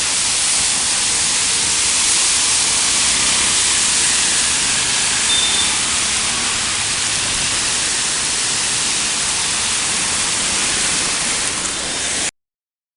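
Heavy rain falling in a steady hiss, cutting off abruptly near the end.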